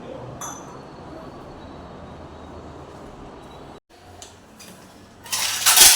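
Pot of kadha boiling on a gas stove: a steady hiss with a low rumble. After a brief break, a loud hissing rush of about half a second comes near the end.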